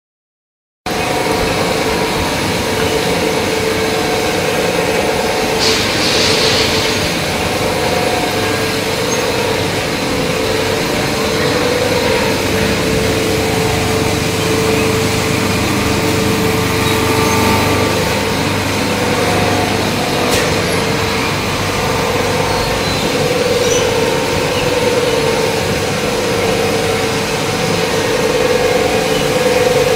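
Steady drone of the machinery of an aluminum scrap melting plant: a continuous mechanical noise with a held hum, starting about a second in, with a couple of brief sharp clicks.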